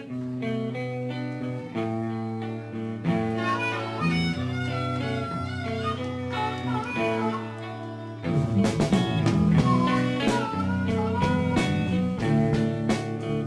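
Blues-style instrumental intro music led by guitar, getting louder and fuller about eight seconds in.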